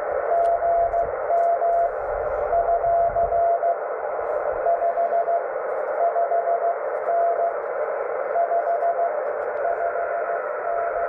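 Morse code on the 18 MHz ham band from a portable transceiver: a single steady tone keyed on and off in dots and dashes, in groups, over constant receiver hiss.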